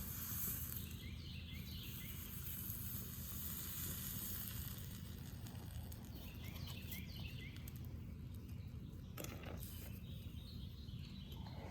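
Steady outdoor background noise with a low hum, and faint bird-like chirps in two short spells.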